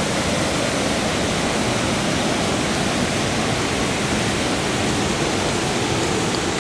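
Steady rush of floodwater pouring over a low waterfall and concrete weir, the falls running unusually full with rain and snowmelt.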